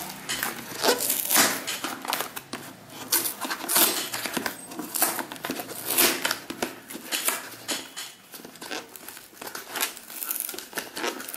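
Cardboard shipping box being torn open by hand along its sealed edge: irregular ripping and crinkling of the paperboard, in fits and starts, as a stubborn, well-sealed seam is pulled apart.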